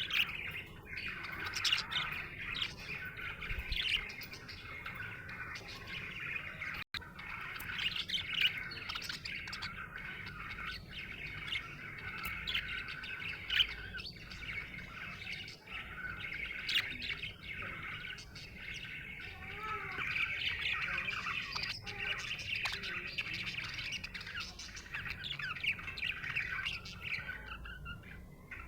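Budgerigars chattering without pause: a dense warble of short chirps, trills and the odd squawk.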